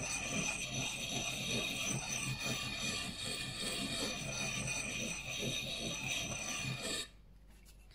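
Water-lubricated sharpening stone rubbed by hand in circles over an axe blade: a steady rasping grind in repeated strokes that stops abruptly about seven seconds in.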